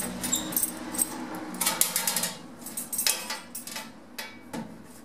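A bunch of keys jangling and clinking as a key is worked in the lock of a metal letterbox. The lock clicks and the small door is pulled open, with a few knocks near the end.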